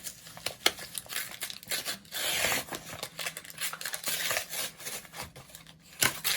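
A Pokémon booster pack's foil wrapper crinkling and tearing as it is handled and torn open, with quick crackles throughout.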